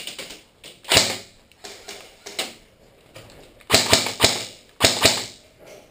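Airsoft gunfire: sharp, irregular cracks of shots and BB strikes, single shots early on and then a quick run of several near the end.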